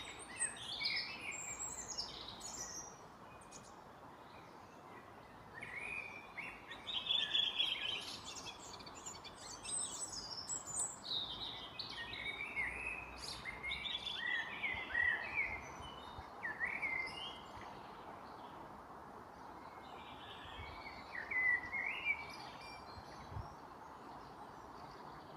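Songbirds singing an evening chorus of quick chirps and warbled phrases in bursts, sometimes overlapping, over a steady background hiss.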